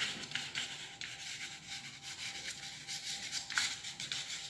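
Chalk writing on a blackboard: a run of short scratching strokes as words are written.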